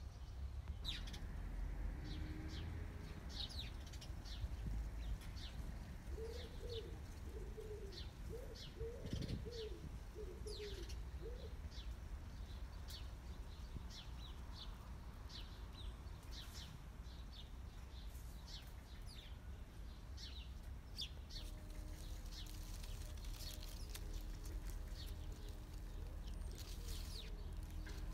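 Small garden birds chirping in short repeated notes, with a dove cooing a series of low calls about a quarter of the way in, over a low outdoor rumble.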